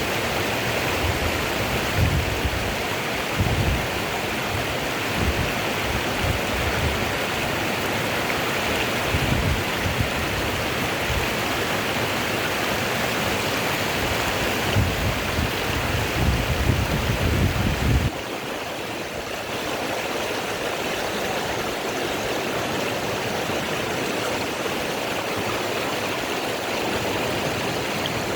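Rushing water of a waterfall, a steady full hiss. Irregular low rumbling runs under it for the first two-thirds and stops abruptly.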